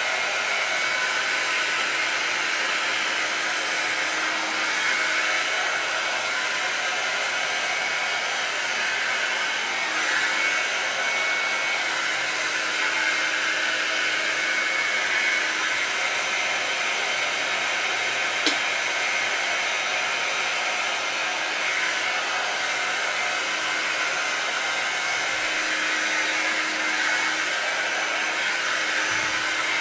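Revlon brush blow dryer, a hot-air brush, running steadily on its high setting: an even rush of air and motor. There is a single brief click about 18 seconds in.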